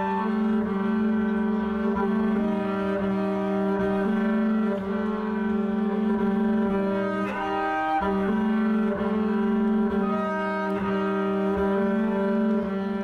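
Background music: slow, held low notes on bowed strings, changing pitch every second or two.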